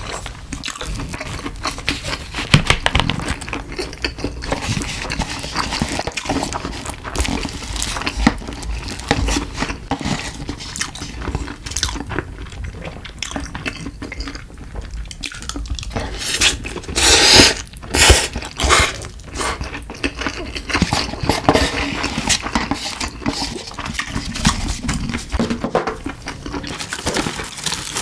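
Close-miked eating sounds: chewing and mouth noises with utensils clicking on plastic lunchbox trays and cups. Past the middle come a few loud slurps of spicy cup noodles.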